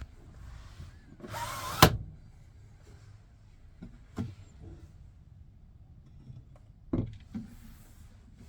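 A door slides along and shuts with a sharp clunk, followed by a few lighter knocks.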